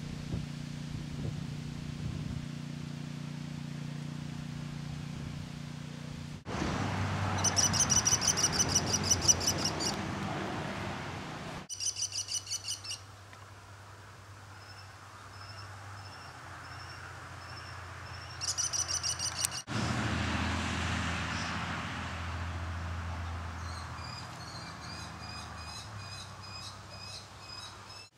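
American kestrels calling: several rapid strings of high, sharply repeated notes, the loudest series about a third of the way in and fainter ones later. A steady low hum runs underneath.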